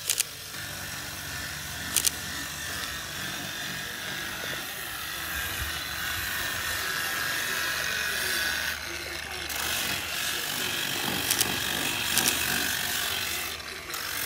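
Electric angle grinder running against the edge of a granite countertop slab, a steady whir with a few sharp clicks. The sound eases briefly about nine seconds in and again near the end.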